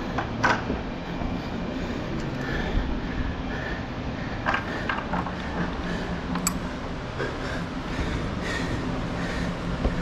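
Climbing rope being clipped into a quickdraw carabiner, with a sharp metallic click about six and a half seconds in. Scattered knocks of hands and gear on the holds and wall sound over a steady background rumble.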